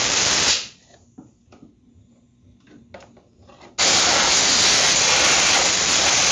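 Compressed-air blow gun blasting grass out from under a lawn mower's belt guard: a loud, steady hiss. It cuts off about half a second in, leaving a few seconds of faint small clicks, then starts again abruptly about four seconds in.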